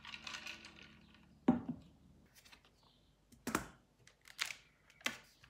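A laptop and a wireless computer keyboard being set down and arranged on a desktop. There is some handling noise at first, then about four separate knocks and clunks a second or two apart, the first the loudest.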